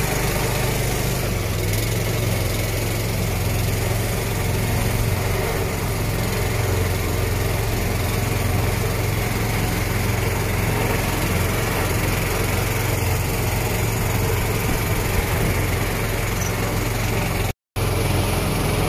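Small tour boat's engine running steadily at cruising speed, a constant low motor drone with wind and water rush. The sound drops out completely for a moment near the end.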